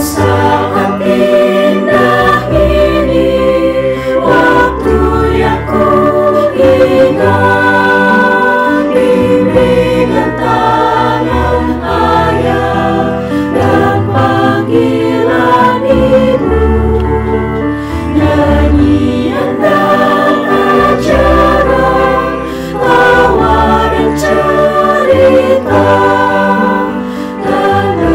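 Mixed choir of young men and women singing a Christian hymn in several parts, several voices holding chords together over low sustained bass notes.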